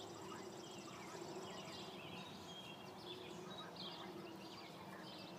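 Faint outdoor ambience with birds chirping in short repeated calls, and a high pulsing trill during the first two seconds.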